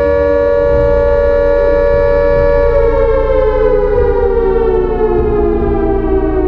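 Air-raid siren sounding a loud steady tone, then winding down slowly in pitch from a little under three seconds in.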